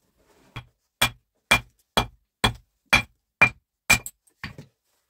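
A small steel pick striking a flat stone slab, chipping it to shape: about seven sharp, evenly spaced blows, roughly two a second, each with a brief ring, then a few lighter taps near the end.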